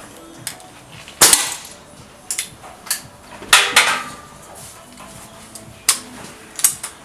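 A series of sharp impacts at irregular intervals, about eight in all, the loudest a little over a second in and about three and a half seconds in.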